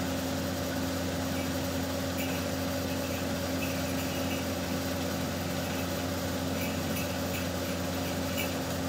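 A steady, even machine hum made of several constant tones, with a few faint light ticks over it.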